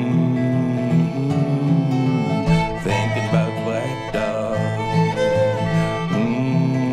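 Instrumental passage of a folk song: a fiddle playing long held notes and a melody over a resonator guitar's rhythmic accompaniment.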